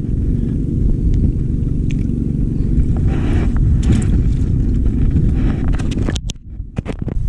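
Wind buffeting a chest-mounted GoPro's microphone, a loud low rumble that eases briefly about six seconds in. A light splash about three seconds in as a small fish is dropped back into the shallows, and a few faint clicks.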